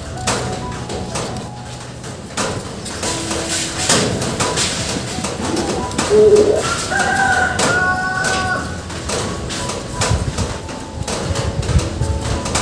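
Birds calling in the background, with low coos a few seconds in and a run of higher calls past the middle. Over them come small clicks and rustles as thread is wound and tied around a coconut-leaf-midrib kite frame.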